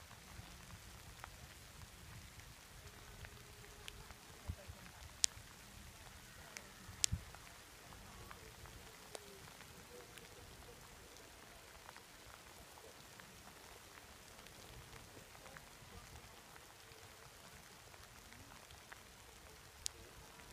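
Faint outdoor background: a low rumble with scattered sharp ticks across it, the loudest two a little under two seconds apart about a quarter of the way in and another near the end.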